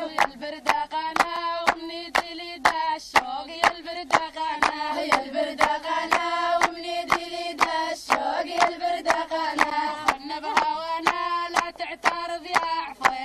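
A song: a singing voice holding long notes over steady hand claps, about two claps a second.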